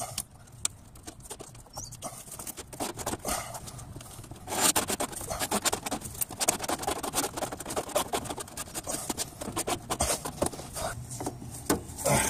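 Rubber fuel-tank hose being pried with a metal pick and twisted loose on its metal neck: a quick, irregular run of scraping and scratching rubs and clicks, thickest from about four and a half seconds in.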